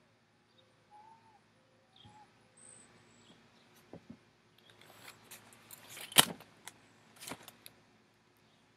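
Canvas ARVN rucksack being shifted and taken off: rustling fabric and straps with a run of sharp clicks of buckles and the metal X-frame, the loudest a bit after six seconds in. Faint bird chirps in the first few seconds.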